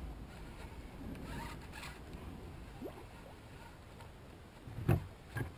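Baitcasting reel being cranked to retrieve line, a faint scratchy whir. Near the end come two dull knocks about half a second apart, the loudest sounds.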